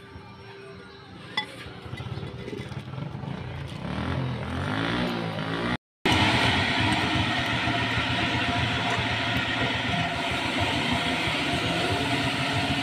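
A motor vehicle engine growing louder over the first half with its pitch gliding. After a brief dropout about six seconds in, an engine runs steadily and loudly.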